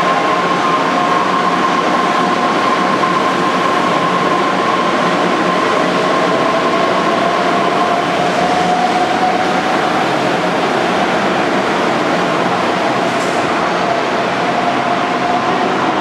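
Loud steady mechanical noise, a rumble and hiss with two whining tones in it: one holds steady and fades out about halfway, the other slowly rises in pitch through the second half.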